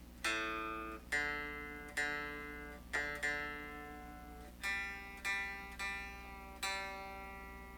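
Electric guitar strings plucked one at a time through a Positive Grid Reactor 50 amp, about nine single notes each left to ring and fade, as the guitar is tuned against the amp's built-in tuner. A faint steady amp hum sits underneath.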